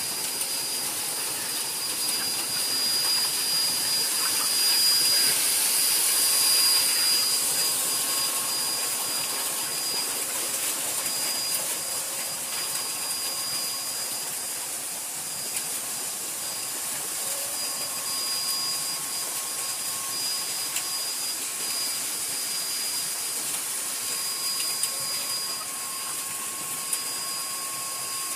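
Motorized pesticide sprayer running steadily: a continuous high hiss of spray with a thin machine whine over it, swelling a little a few seconds in.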